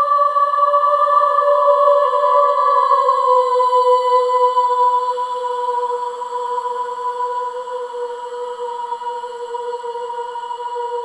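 Ominous, creepy ambient drone: sustained, voice-like tones that slide slightly lower about three seconds in, then hold steady and a little quieter.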